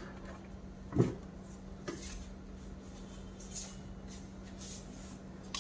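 A sharp knock about a second in, then a lighter click, from hands handling and letting go of the reassembled Kärcher WD6 Premium vacuum cleaner's plastic housing, over a steady low hum.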